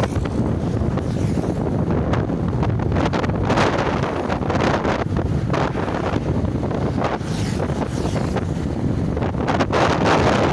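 Wind buffeting the microphone on a moving motorcycle, a dense, fluctuating rush, with the rumble of the ride underneath.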